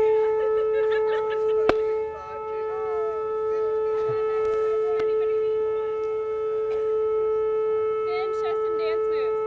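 Outdoor air raid siren sounding a long steady tone that holds one pitch without rising or falling.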